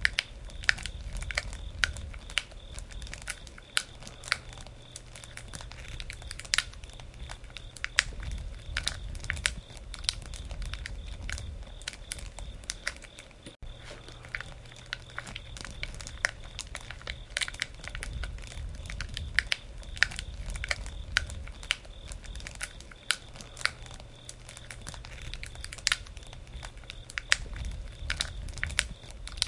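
Wood campfire crackling, with irregular sharp snaps and pops over a low rumble from the burning fire.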